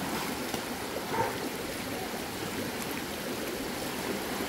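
Shallow river rushing over rocks, a steady wash of flowing water.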